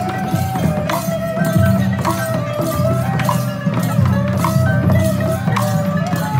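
Vietnamese traditional music: a sustained melody line over a low drone, with percussion striking a regular beat about twice a second.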